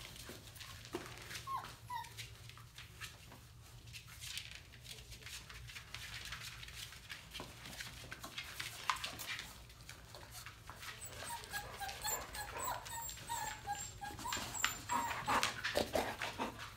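Chocolate Labrador Retriever puppies whimpering and squeaking in short thin bursts, most in a cluster about two-thirds of the way through. Paws tick and scuffle on a tile floor throughout.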